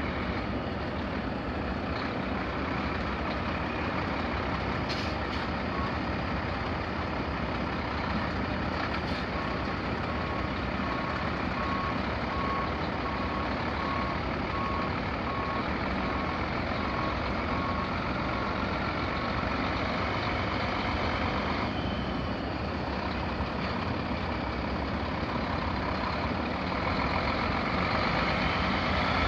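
Mack E7-350 six-cylinder diesel in a heavy truck running steadily. About ten seconds in, a beeping alarm sounds at one pitch for several seconds, with a couple of short clicks earlier.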